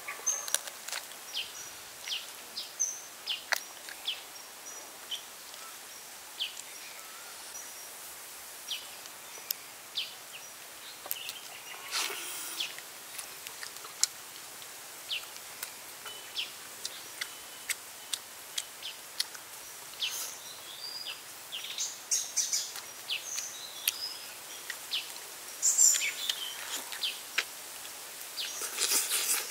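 A person eating roasted duck by hand: many short smacking clicks of chewing throughout, with a few louder tearing bursts. Birds chirp in the background.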